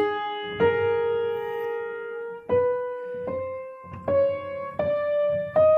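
Grand piano played one note at a time, stepping slowly upward, each note ringing clear with no buzz or rattle. This is the middle register, left without preparations among otherwise prepared strings.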